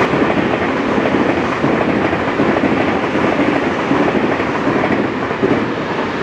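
Tobu Railway train passing over a level crossing at close range: a loud, steady rumble and rattle of wheels on the rails.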